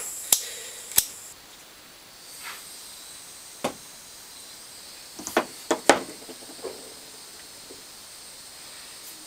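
A small gas soldering iron being lit: a faint steady gas hiss, with a handful of sharp clicks from the ignition attempts. It has not yet caught.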